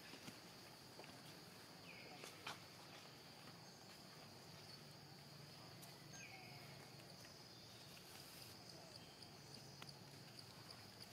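Faint outdoor ambience: a steady, high insect drone, with two short chirps and a few soft clicks.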